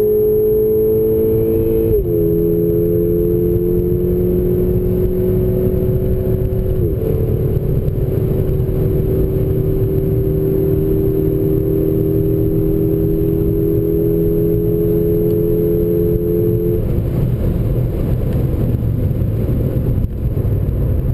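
Volkswagen GTI's turbocharged four-cylinder engine pulling hard along a straight, heard from inside the cabin over steady road and wind noise; its pitch climbs slowly and drops sharply at upshifts about 2 and 7 seconds in. About 17 seconds in, the engine note falls away as the driver lifts off for the next corner.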